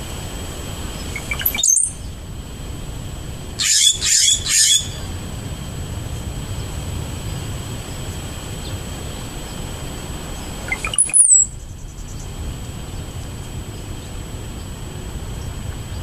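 Wild birds calling: a short high chirp about two seconds in, a quick run of three loud, harsher calls around four seconds, and one high descending chip near eleven seconds, over a steady low background rumble.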